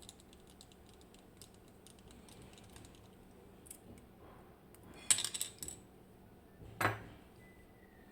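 Small metal lock parts and tools clicking and rattling as a Medeco M4 lock is taken apart: faint scattered ticks, a quick cluster of sharp clicks about five seconds in, and one louder click about a second later.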